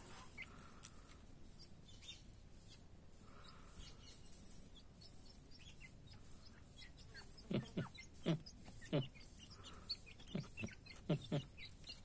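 Young grey francolins giving soft, faint clucks and chirps. From about seven and a half seconds in comes a quick run of about ten sharp taps, as the birds peck banana pieces off the stone floor.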